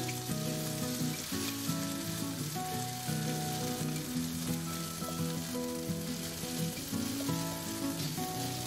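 Crumbled vegan burger mixture sizzling steadily as it fries in oil in a pan, with background music playing over it.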